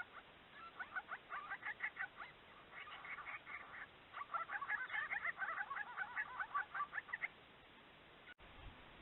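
Birds calling in a fast chatter of short, repeated harsh notes, in several bursts that stop about seven seconds in.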